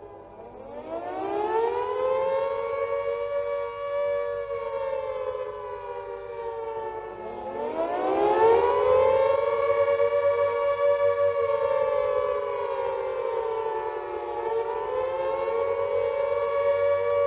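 A British WWII Carter air raid siren sounds two close notes together as one discordant chord. About half a second in it winds up from a low pitch to a held tone, then sags and rises again twice, a rising and falling wail.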